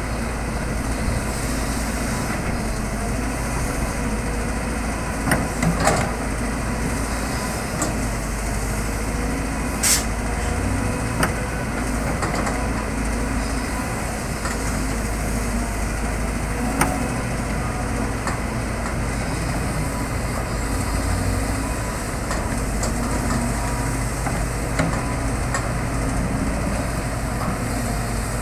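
Caterpillar excavator's diesel engine running steadily under work, with a few sharp knocks and clanks now and then.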